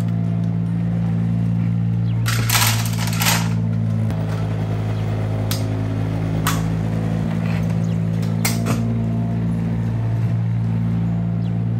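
Steady low hum of a tractor engine at a constant speed, a sound effect laid over toy play. A short clatter of small plastic toy stones comes a little over two seconds in, followed by a few sharp plastic clicks.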